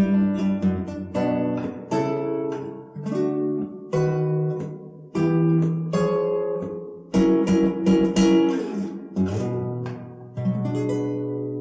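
Acoustic guitar playing a calm, fingerpicked chord etude, each chord embellished with a repeated two-note motif, E and D, that is meant to suggest a distant siren. Sharp percussive clicks fall among the notes.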